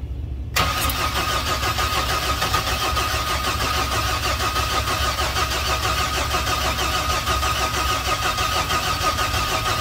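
Hyster forklift's GM 4.3 Vortec V6 starting about half a second in and running loudly with a steady whine. The engine had seized after running out of oil.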